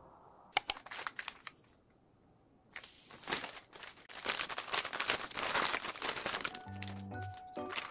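Plastic meal-kit packaging crinkling and rustling as the bag is opened and handled, after a few sharp clicks about half a second in. Gentle background music comes in near the end.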